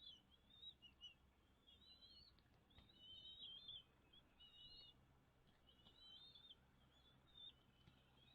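Small bird twittering in high, quick warbling phrases, repeated with short pauses.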